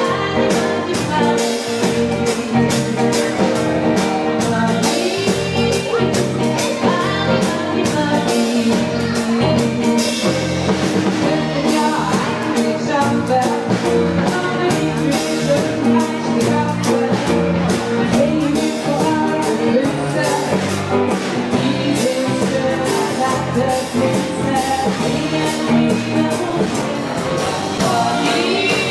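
Pop-rock band playing a song with a sung vocal over electric guitars, electric bass, keyboard and a steady drum-kit beat.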